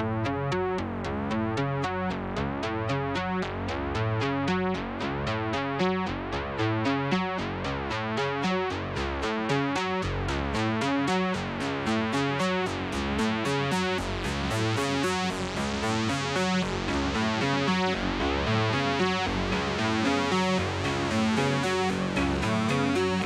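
Background music: electronic synthesizer music with a steady, quick repeating beat.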